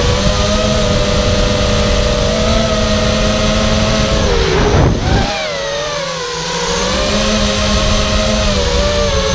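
Charpu 210 FPV racing quadcopter's brushless motors and propellers whining steadily, heard from its onboard camera with wind buffeting. About five seconds in, the pitch dips and the sound drops as the throttle eases off, then rises back.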